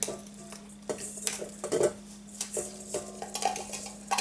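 Spoon and measuring cup clinking and scraping against a mixing bowl in a run of about a dozen irregular light clinks, as brown sugar is spooned in.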